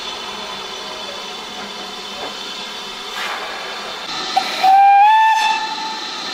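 Steam locomotive whistle on BR Standard Class 4 tank 80151: a short pip, then a toot about a second long that steps slightly up in pitch. Under it is a steady hiss of steam from the slowly moving engine.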